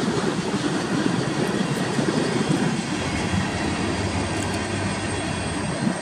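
Cars of a manifest freight train rolling past on steel rails: a steady rumble of wheels on track.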